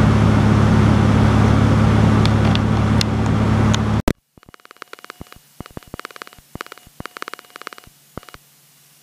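Steady drone of a 1954 Beechcraft Bonanza's six-cylinder Continental E225 engine and propeller in cruise at 2100 RPM, lean of peak, heard inside the cabin. It cuts off abruptly about four seconds in. After that there is only a quiet scatter of small clicks and rustles as the headset is handled.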